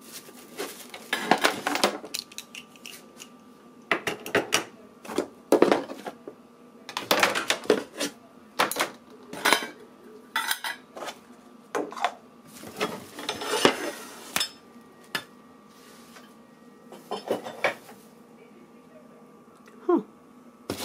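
Kitchen utensils clattering and clinking as they are taken out of a wooden drawer one handful at a time, in an irregular string of knocks.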